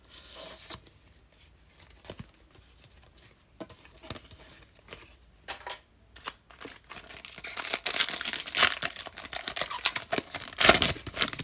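Foil wrapper of a pack of baseball trading cards being torn open and crinkled by hand. Faint rustling at first, then from about seven seconds in a dense run of crackling tearing and crinkling, loudest near the end.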